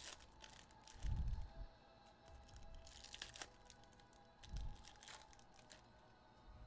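Foil trading-card pack wrappers of 2023 Panini Select football crinkling and tearing as packs are opened by hand. A dull thump comes about a second in, and a softer one near the middle.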